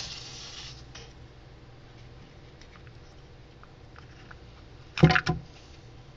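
Handling noise in a terrarium: a short rustle at the start as a hand moves through the bark-chip floor, faint light ticks, then two sharp knocks about five seconds in, a third of a second apart.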